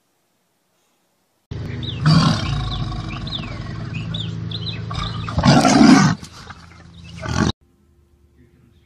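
Tiger roaring: a loud roar about two seconds in, a longer, louder one around five and a half seconds and a short one just before it cuts off, over a steady low hum with faint high chirps.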